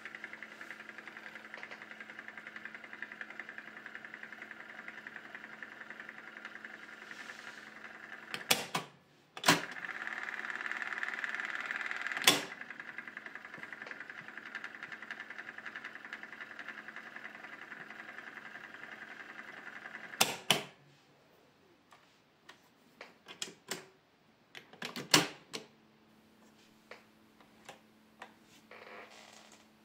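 JVC CD-1770 cassette deck's tape transport running with a steady whir, louder for a few seconds in the middle. Its piano-key controls are pressed with sharp clunks about 8, 9, 12 and 20 seconds in, and the whir stops at the last one. Then come soft scattered clicks and knocks of hands at the controls.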